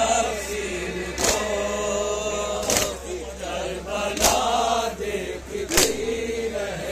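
Male mourners chanting a noha together, with a loud, sharp slap of hands on chests (matam) about every second and a half, in time with the chant.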